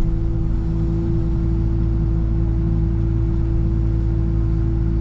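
Excavator running steadily at a constant pitch, its engine and hydraulics humming with one steady tone over a low drone while it works a pile of leaves.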